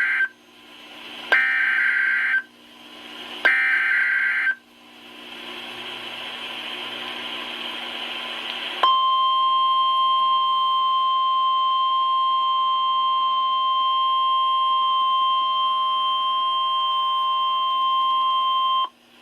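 Emergency Alert System broadcast on NOAA Weather Radio: the end of one burst of SAME header data tones and two more bursts, each about a second long with a one-second gap, then a few seconds of radio hiss. After that the steady 1050 Hz weather-radio warning alarm tone sounds for about ten seconds and cuts off abruptly. This signals that a new warning is about to be read.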